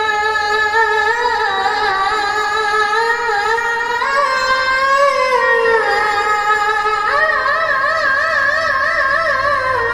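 A boy qari's high voice chanting Quran recitation (tilawah) into a microphone in one long unbroken melodic phrase. The pitch climbs about four seconds in and dips, then from about seven seconds a higher note is held with a fast wavering ornament before it falls near the end.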